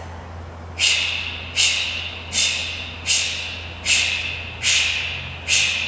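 A woman doing Kapalabhati breathing: seven sharp, forceful exhales about one every 0.8 seconds, each driven by a snap of the core muscles, with the inhales drawn in passively between them.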